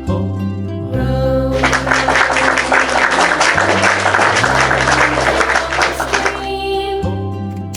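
Children's nursery-rhyme music with a steady bass line and sustained notes. From about one and a half seconds in until just past six, a dense hissing layer like cheering or sparkle effects sits over the music.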